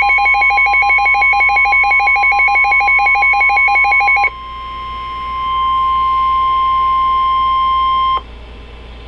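Emergency Alert System warning tones: a loud, rapidly pulsing electronic tone over a steady tone for about four seconds, then the steady tone alone. It cuts off abruptly about eight seconds in, leaving a low hiss.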